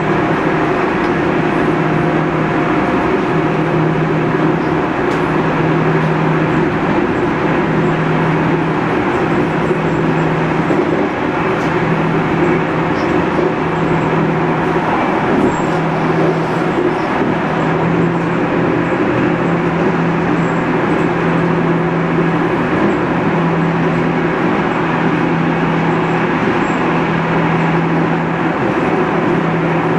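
Modernised SNCB AM80 electric multiple unit running at steady speed, heard on board: even rolling and traction noise with a low hum that cuts in and out every couple of seconds.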